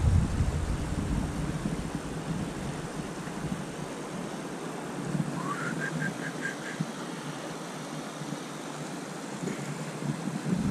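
Steady outdoor hiss with a little wind rumble at the start. About halfway through comes a short high call: one rising note, then five quick chirps.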